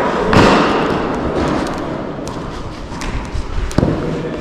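Two sharp knocks over a steady rushing noise: a heavy one about a third of a second in, and a crisper, shorter one near the end.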